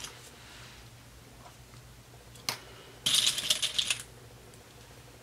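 Small plastic sewing clips clattering in a bowl as a hand rummages through them for about a second, after a single sharp click.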